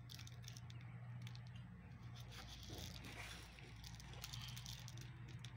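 Faint scattered clicks and rustles of hands sprinkling candy sprinkles onto chocolate-coated banana pops and a spoon working melted chocolate in a plastic bowl, over a steady low hum.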